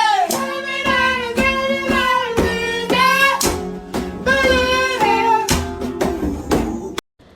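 Background music with a sung vocal line of long held notes, cutting off abruptly near the end.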